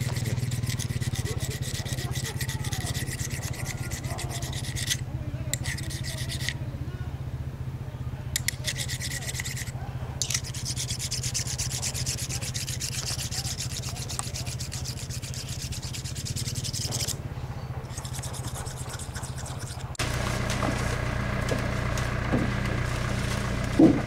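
Grape-harvest knife being sharpened by hand, steel rasping against the blade in continuous strokes over a steady low hum; the rasping pauses briefly several times. About four seconds before the end it gives way abruptly to a steadier low hum with a few light knocks.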